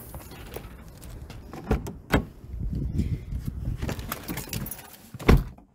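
Keys jangling, with clattering knocks and handling noise from getting into a car. A few sharp thumps stand out, the loudest near the end.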